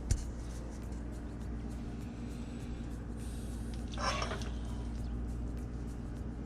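Steady low hum in a kitchen, with a short click at the very start and a brief clatter about four seconds in.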